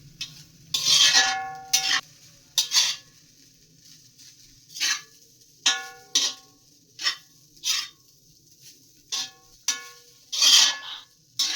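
Metal spatula scraping and knocking against a wok while stir-frying rice. The strokes come irregularly, about one a second, and several knocks leave a short metallic ring.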